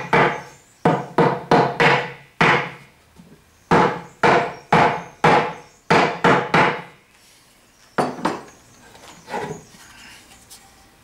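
Wooden mallet knocking on the chestnut-wood panels of a box being assembled: about a dozen sharp blows in quick runs, then two lighter knocks near the end.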